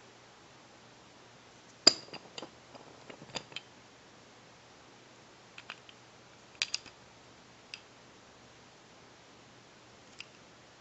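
Scattered small clicks and taps as a wooden toy train engine is handled and turned over in the hand. The sharpest click comes about two seconds in, and a few softer ones follow over the next several seconds.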